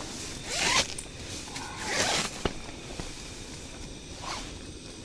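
Handheld gas torch on a canister burning with a hiss and flaring in short rasping bursts, twice in the first couple of seconds and once more, weaker, near the end, with a couple of light clicks. The torch is leaking gas at its fitting and still hisses.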